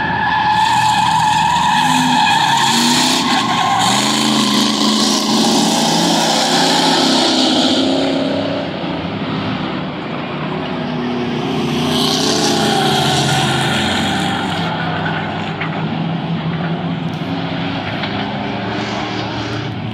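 A pack of stock cars and pickup trucks racing on a paved short-track oval, engines revving up and down as they pass, with tire squeal in the turns.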